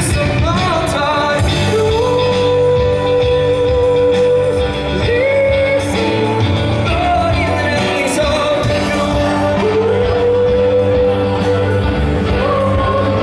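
A man singing into a microphone with a live band of keyboard and drums, amplified through a PA, holding long notes over a steady accompaniment.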